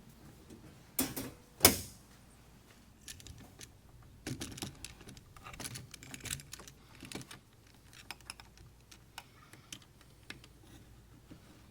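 Irregular small clicks and taps of hand work with tools and small hard parts, with two sharper knocks early on, the second the loudest, about a second and a half in.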